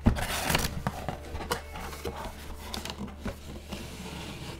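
Cardboard packaging box handled and opened by hand: the flap scraping and rustling against the box, with a run of small taps and knocks, loudest just at the start.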